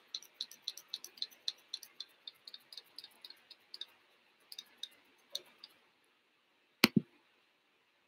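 Folded paper origami flapping bird, its wings clicking crisply as the tail is pulled again and again: about four clicks a second, growing sparser and stopping about two-thirds of the way through. A sharp double knock follows near the end, the loudest sound of all.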